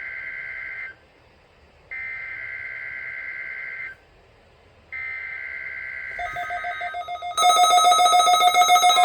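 NOAA Weather Radio SAME header data tones for a Required Weekly Test: a harsh two-tone digital warble in bursts about two seconds long with a second's gap between them, three in all, the first already under way. Near the end the bursts give way to a louder electronic sound with several held tones.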